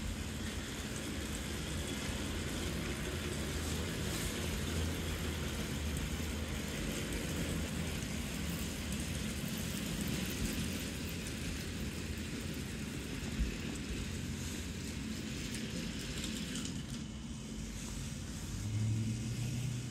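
Battery-powered toy train motor running with a steady low whir. Near the end a second motor whirs in as the toy crossing gate arms lift.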